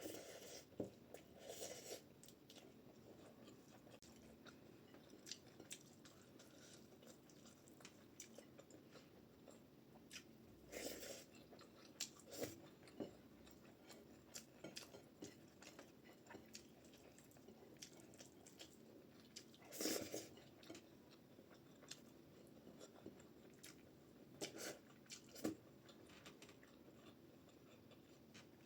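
Faint chewing and mouth sounds of a person eating rice and dal, with scattered soft clicks and a few louder short sounds about 11 and 20 seconds in.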